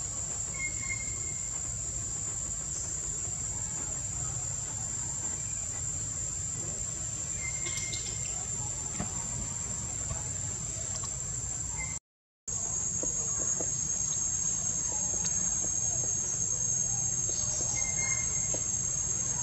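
Insects droning steadily at a high pitch, with a few faint short chirps; the drone cuts out for a moment about twelve seconds in.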